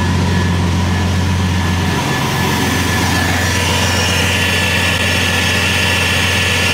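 Bentley's turbocharged W12 engine idling smoothly with its accessory drive belt removed, no longer making its metallic rattle. This puts the fault in the belt drive rather than inside the engine. A higher hiss comes up about halfway through.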